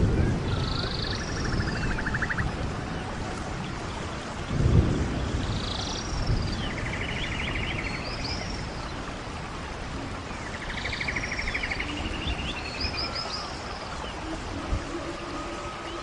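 Birds calling again and again, in short arching notes and rapid buzzy trills, over a low rumble of wind on the microphone. A thump about five seconds in is the loudest moment.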